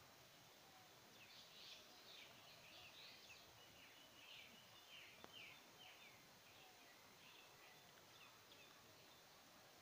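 Faint bird chirps: a rapid run of short calls, thickest from about one to seven seconds in, over a quiet background hiss, with a single faint click a little past halfway.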